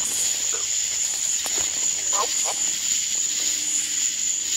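Crickets and other night insects trilling, one continuous high, steady chorus. A faint, short wavering sound comes through about two seconds in.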